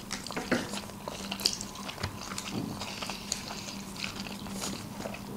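Close-up chewing and wet mouth sounds of people eating sushi rolls, with small scattered clicks, over a faint steady hum.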